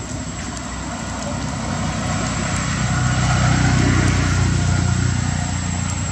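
A motor vehicle's engine passing by, growing louder to a peak about four seconds in and then fading.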